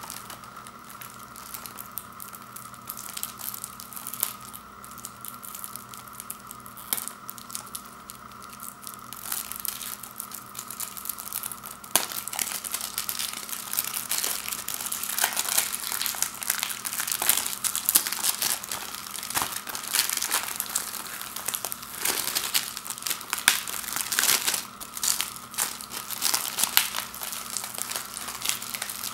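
Clear plastic shrink-wrap being picked open, torn and peeled off a plastic Blu-ray case, crinkling and crackling irregularly; it grows louder and denser about halfway through as the wrap comes away.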